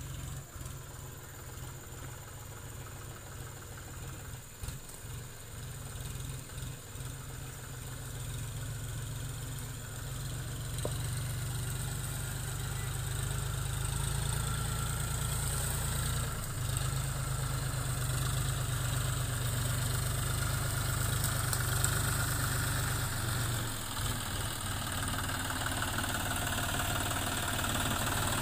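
Tractor engine running steadily with an even pulse, growing louder about a third of the way in as it comes closer or works harder.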